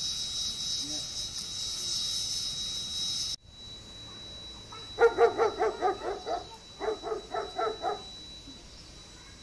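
A dog yapping in two quick runs of short, sharp barks, about eight a second, the second run starting just under two seconds after the first. Before them a steady high hiss stops abruptly about a third of the way in.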